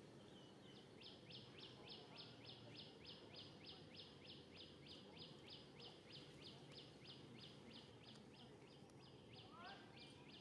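A bird calling: a faint, rapid, even series of short high notes, about four a second, starting about a second in and stopping just before the end.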